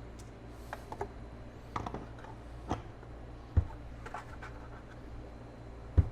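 Small clicks and scrapes of a screwdriver and screws being worked on a transceiver's case, with two sharper knocks about three and a half seconds in and near the end.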